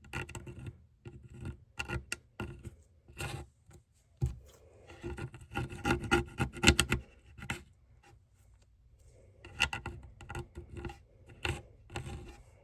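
Slime being squished and stretched by hand, making irregular sticky clicks and small air-bubble pops that come in clusters, with a brief lull past the middle.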